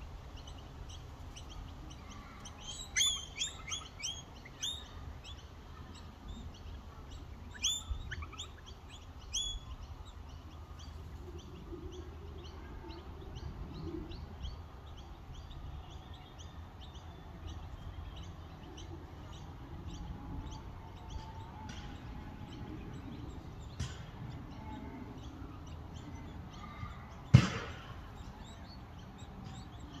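Noisy miners calling: several bursts of sharp, falling chirps in the first ten seconds over a steady run of faint high chirping at the nest. A single loud thump near the end.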